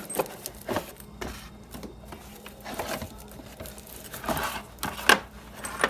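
Objects being rummaged and handled: scattered knocks, clicks and rustling, with the sharpest knock about five seconds in.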